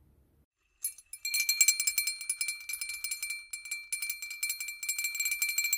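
Music of jingle bells shaken rapidly, with a steady ringing tone; it starts suddenly about a second in after a brief silence.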